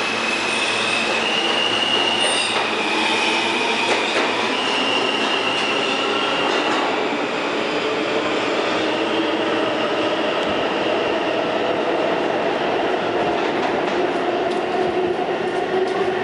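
R160 subway train pulling out of an underground station and speeding up into the tunnel. High wheel squeal in the first few seconds, then a whine that rises in pitch as the train gathers speed, with wheels clacking over the rails near the end.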